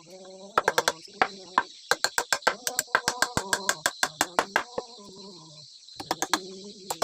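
Rapid hammer blows, about four or five a second, for about four seconds, ending a little before the five-second mark, over a steady chirring of crickets.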